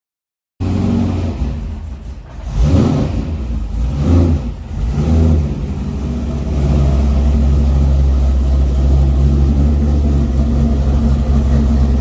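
A 2003 Corvette Z06's LS6 V8 engine is blipped twice within its first few seconds, then settles into a steady, loud idle.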